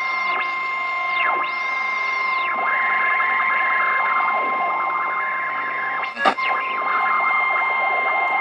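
Sanyo Campanetta radio's speaker hissing and whistling while it is tuned across a band: heterodyne whistles sweep up and back down in pitch as the dial is turned, over a steady whine. A short crackle breaks in about six seconds in.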